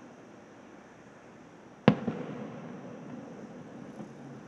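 A distant aerial firework shell bursts with one sharp bang about two seconds in. A smaller crack follows, and a rumbling tail dies away.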